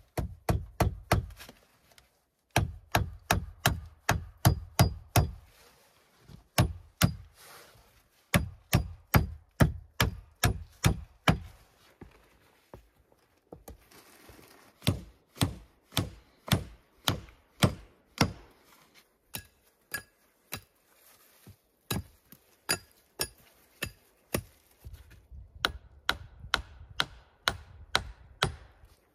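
A hand tool striking wood in a long series of sharp blows, about two to three a second, in runs of several seconds broken by short pauses.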